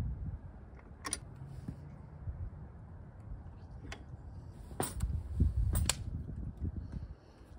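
A handful of sharp metallic clicks and taps, spread out, from a hand tool working the mirror-mount bolt on a motorcycle handlebar as the mirror is tightened down to clamp a hand guard. They sit over a low rumble that swells about two-thirds of the way through.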